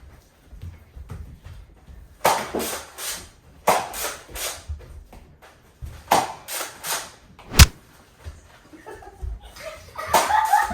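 Toy foam-dart blaster firing in quick bursts of three or four shots, each a short puff, with a single sharp knock about two-thirds through, the loudest sound.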